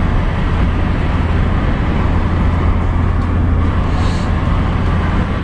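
Steady cabin noise of a Chevrolet Corsa Classic on the move: a low, even engine and road drone with tyre and wind rush.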